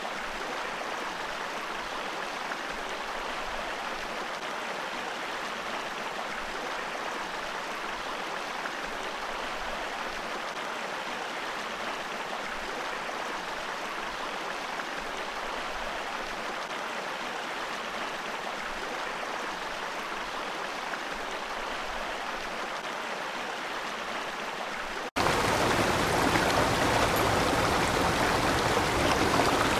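Water from a small mountain creek waterfall pouring over rocks, a steady rush. About 25 seconds in it cuts abruptly to a louder, fuller rush of falling water.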